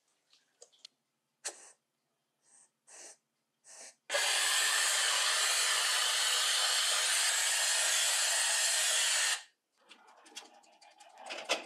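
Power Coat 4 Pro powder coating gun blowing compressed air: a few short puffs, then a steady spraying hiss for about five seconds that cuts off sharply. Quieter clicking and rattling follow near the end.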